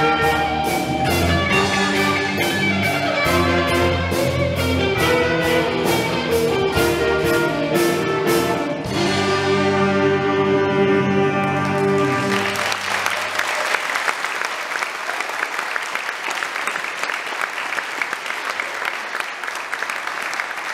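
A school band of electric guitar, bass, drums, saxophones and clarinet plays over a steady cymbal beat, then ends on a held chord about nine seconds in. From about twelve seconds in, the audience applauds.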